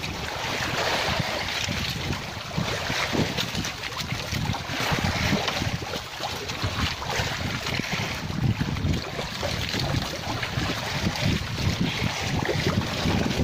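Wind buffeting the microphone, low and gusty, over the steady wash of open sea around a small outrigger boat. No engine is heard running.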